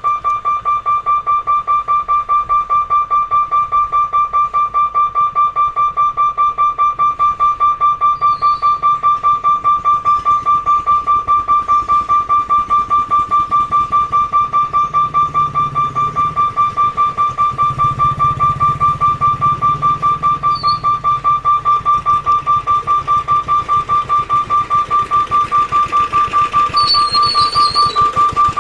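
Level crossing warning alarm sounding one steady high electronic tone that pulses rapidly and evenly, about four times a second, without a break.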